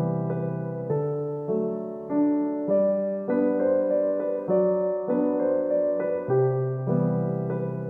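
Background piano music: a gentle melody with notes struck at an even pace, about one every half second or so, each fading after it is struck.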